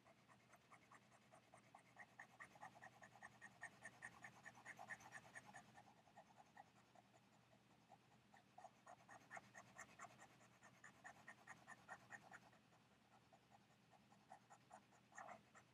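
Faint, rapid back-and-forth scratching of a stylus scribbling to shade in a grid, about four to five strokes a second, in two spells with a pause between them.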